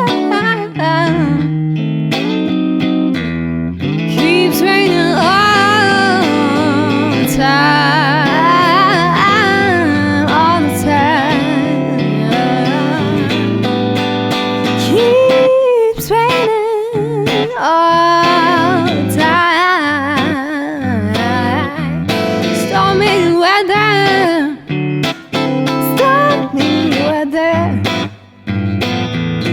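A woman singing a melody with vibrato, accompanied by guitar.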